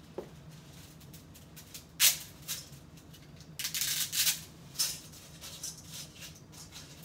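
Dry fettuccine being snapped and dropped into a pot of water: a sharp crack about two seconds in, then a spell of dry crackling and rattling near the middle, and another snap shortly after.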